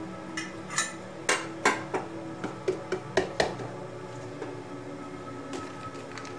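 A spoon clinking against a ceramic mug: about a dozen sharp, uneven clinks in the first three and a half seconds, then a few lighter knocks near the end, over a faint steady hum.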